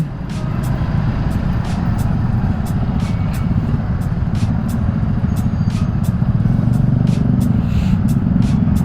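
Honda Revo Fi's small single-cylinder four-stroke engine running as the motorcycle rides on through moving traffic: a steady low rumble that grows a little louder just after the start, with scattered faint clicks.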